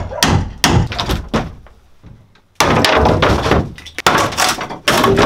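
Old wooden wardrobe being pulled apart by hand: a quick run of knocks and thuds on its boards in the first second, then, after a short lull, a loud stretch of wooden panels cracking and banging as they come loose, with more thuds near the end.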